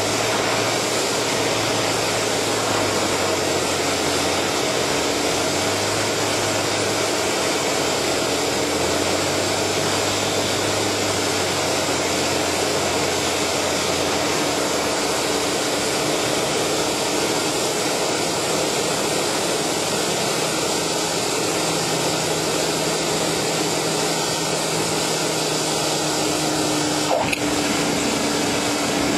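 Cessna 172's piston engine, propeller and airflow heard from inside the cockpit on final approach: a loud, steady drone whose low note steps up and down a few times. Near the end, a single sharp knock.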